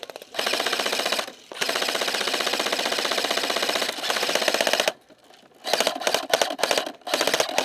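Airsoft electric rifle firing full-auto, a fast even rattle of shots. There is a burst of about a second, then a long burst of about three and a half seconds, a brief pause, and several short bursts near the end.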